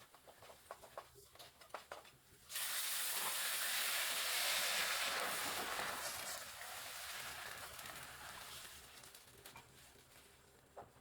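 Food dropped into a hot pan, sizzling loudly all at once about two and a half seconds in, after a few light clicks, then slowly dying down.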